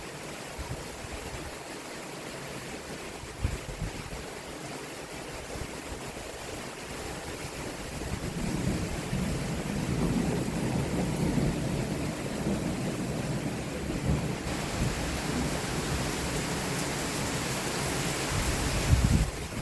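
Heavy thunderstorm rain pouring steadily, with a low rumble swelling about halfway through and a short low thump near the end.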